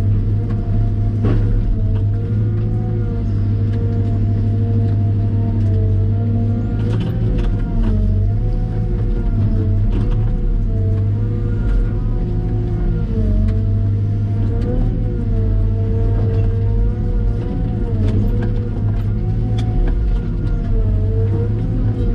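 Diesel engine of a CAT M313D wheeled excavator running steadily under load. A whining tone, typical of the hydraulics, dips and rises every second or two as the machine works, with a few light knocks.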